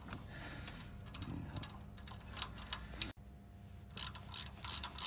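Hand tools working a small screw on a metal cable clamp of a forklift's wiring: light metallic clicks and clinks, then a quick run of sharp clicks from about four seconds in as the screw is turned tight.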